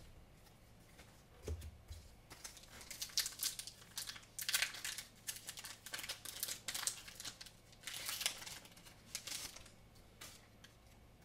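Foil Pokémon booster pack wrapper being crinkled and torn open, in uneven bursts of crackling and rustling.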